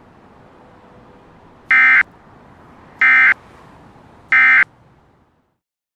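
Three short digital data bursts about a second apart: the Emergency Alert System's SAME end-of-message tones that close an alert broadcast. Faint background hiss under them cuts off about five seconds in.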